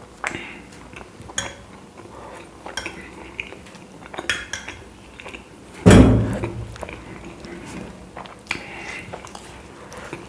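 Dishes and cutlery clinking and scraping in short, scattered knocks while eating, with one louder, heavier thump about six seconds in.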